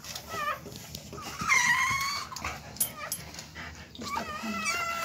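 Newborn Siberian husky puppies crying with high, thin squeals: a few short cries, a longer cry about a second and a half in, and another cry starting near the end.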